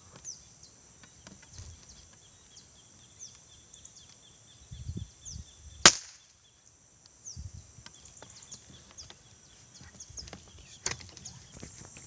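A single sharp air-rifle shot about six seconds in, over a steady high insect drone and scattered short, falling bird chirps; a smaller click follows near the end.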